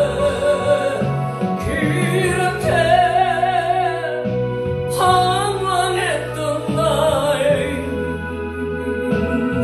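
A woman's amplified singing over instrumental accompaniment, the melody carried in long notes with heavy vibrato.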